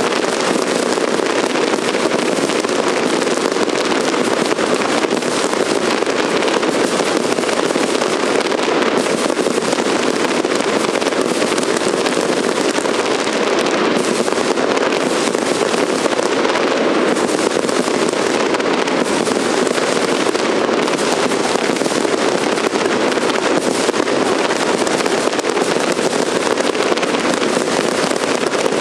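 Fireworks crackling in a dense, continuous stream of rapid small pops, steady in loudness, with no single big bang standing out.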